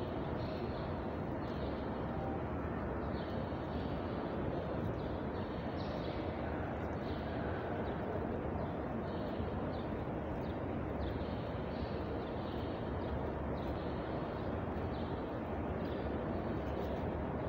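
Steady rumbling background noise inside a large hall, with a faint rustle about once a second from a phone being carried at a walking pace.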